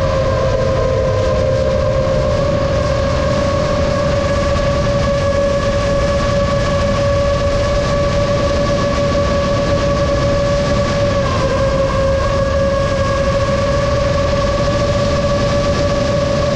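A 7-inch FPV drone's motors and propellers give a steady whine over a rush of noise. The pitch dips briefly just after the start and again about eleven seconds in.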